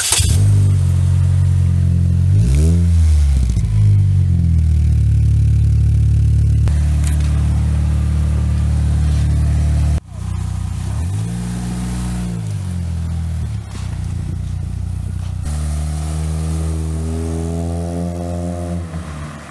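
A car engine catching as it starts, then idling with two quick revs that rise and fall, and near the end accelerating away with a steadily rising note.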